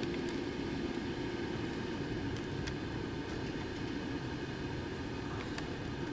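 Propane-and-air torch flame burning steadily: a constant rushing noise with a faint low hum, and a few light ticks.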